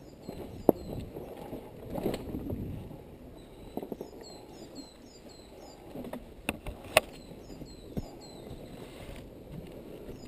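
Dirt bike tyres crunching and squelching over a muddy, rutted trail with no engine running, broken by a few sharp knocks and clicks from the bike.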